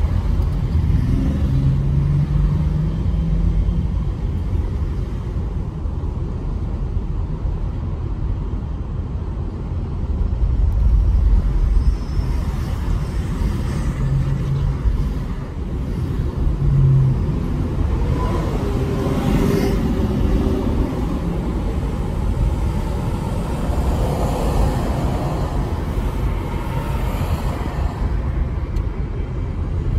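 A car driving along a city street: steady low road and engine rumble with other traffic around, swelling briefly now and then.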